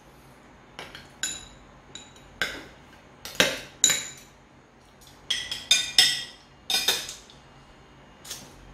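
Metal spoons clinking and scraping against dishes as avocado cheesecake is scooped and served: about a dozen sharp, irregular clinks, some with a short ring, bunched together in the middle of the stretch.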